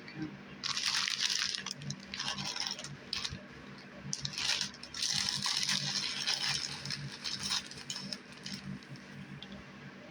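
Crinkly material being handled and rustling, in two longer spells with scattered crackles between, over a low steady hum.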